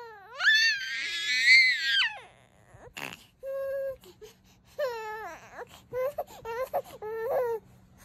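Baby girl crying: a loud, high-pitched shout lasting about two seconds, then, after a short pause, a brief cry and a string of shorter whimpering cries.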